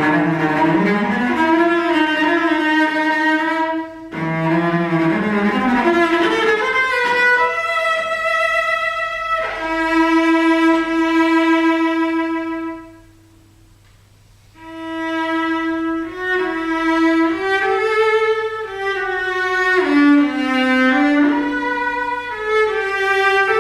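Cello built after a 1740 Montagnana model, bowed in a slow melody: a long held note, then a pause of about a second and a half past the middle before the phrase resumes.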